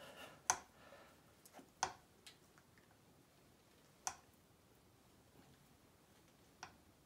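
A few sharp, short metallic clicks spread out over several seconds, with quiet between them, as slip-joint pliers grip and work a steel oil pump pickup tube into the oil pump.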